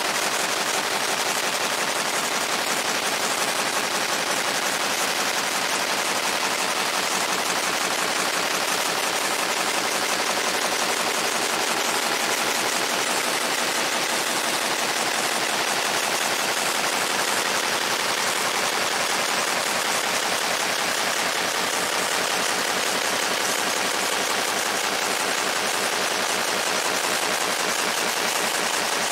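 Fiber laser engraving the steel head of a sledgehammer: a steady, rapid crackling buzz as the pulsed beam sweeps across the metal.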